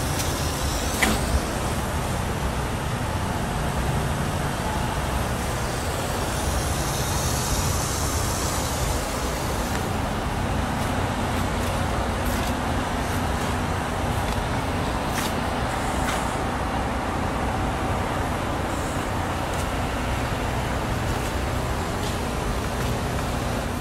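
Steady rumble of idling diesel semi trucks at a truck-stop fuel island, an even drone with no single event standing out.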